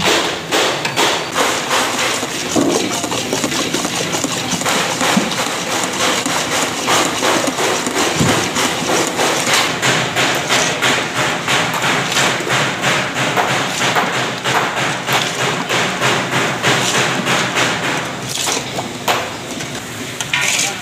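Metal spoon beating a thick egg batter in a steel bowl: a fast, steady run of knocks and clinks against the metal, with the wet slap and scrape of the batter.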